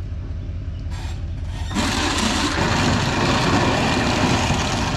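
Tow vehicle's engine rumbling low and steady while backing a travel trailer, joined about two seconds in by a loud rushing hiss that lasts about three seconds.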